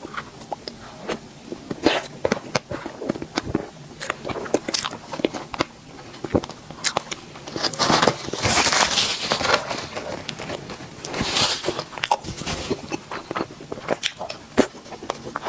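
Close-miked eating of sweet desserts: bites and chewing with many sharp mouth clicks, and two longer, louder stretches about eight and eleven seconds in.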